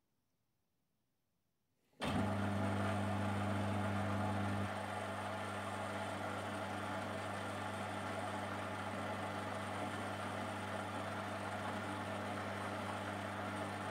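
Metal lathe running while cutting an M16 coarse (2 mm pitch) thread on a drawbar: a steady machine hum that starts suddenly about two seconds in and eases slightly in level a couple of seconds later, then holds steady.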